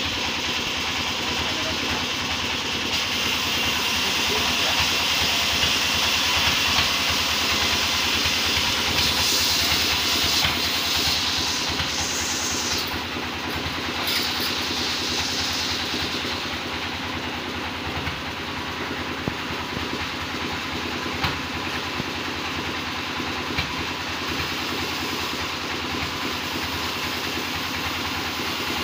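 Sawmill machinery running steadily while it saws a log. A louder, high hiss swells during about the first half and eases off after that.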